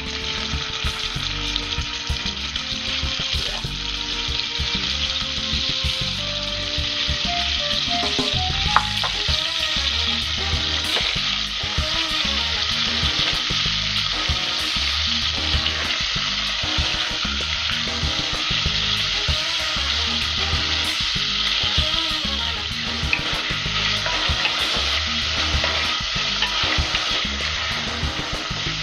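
Beef cubes searing in hot olive oil in an enamelled cast-iron casserole dish: a steady sizzle, with a wooden spoon stirring the meat around the pan.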